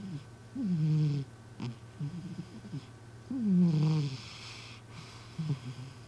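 A sleeping cat snoring. There are two loud snores about three seconds apart, each falling in pitch with a breathy hiss, and softer snuffling breaths between them and near the end.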